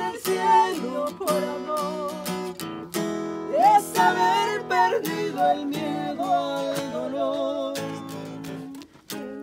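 Acoustic guitar strummed with a voice singing along. The playing dips briefly shortly before the end.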